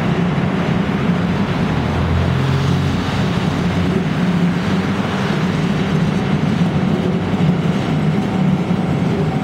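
Electric tram of two coupled cars rolling up a slight incline and passing at close range: a steady low drone with an even running rumble.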